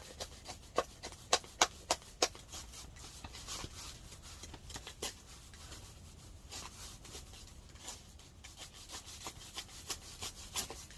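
Irregular sharp scrapes of a blade against wood, more frequent in the first couple of seconds: dry wood being shaved by hand into kindling for a wood stove.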